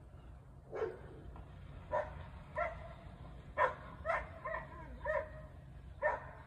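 A dog barking, about eight short barks at uneven intervals.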